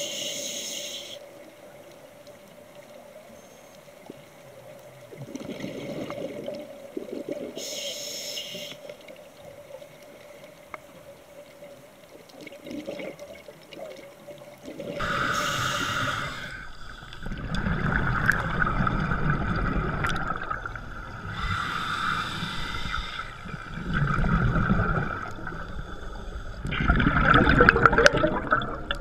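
Scuba diver's regulator breathing heard underwater: exhaled bubbles rush in bursts every few seconds, quieter at first and much louder from about halfway through.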